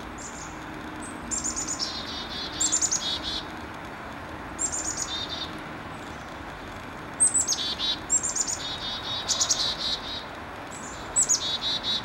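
Chickadees giving repeated chick-a-dee-dee-dee mobbing calls in several bouts, each a high opening note followed by a quick run of lower, buzzy dee notes. These are alarm calls announcing a bird-eating hawk nearby.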